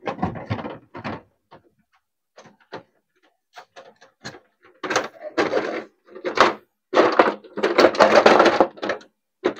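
Plastic front casing of a Samsung split-type air conditioner's indoor unit being fitted and pressed onto the unit: scattered clicks and knocks, then denser rubbing and knocking of plastic in the second half as the cover is seated.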